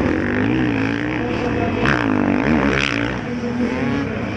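Several motocross bikes racing together, their engines revving up and down as they accelerate out of the turns, the pitches overlapping and sweeping.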